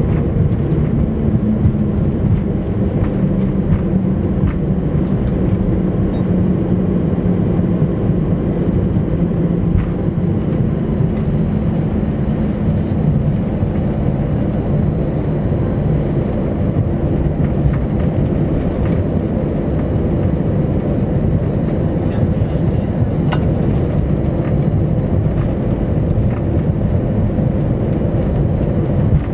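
Cabin noise inside an Airbus A321 rolling on the ground after landing: a steady rumble from the landing gear and engines, with a low hum that drops slightly in pitch over the first ten seconds.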